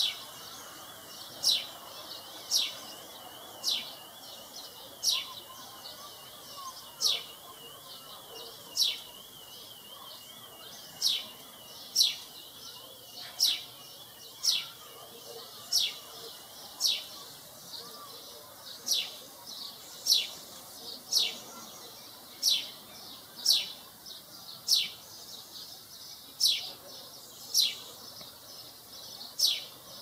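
A young sparrow calling: a short, high chirp that sweeps downward in pitch, repeated about once a second with a few longer pauses.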